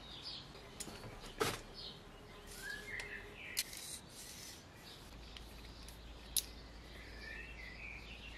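Small birds chirping quietly in the background, broken by three sharp metallic clicks from a steel digital caliper being handled and slid.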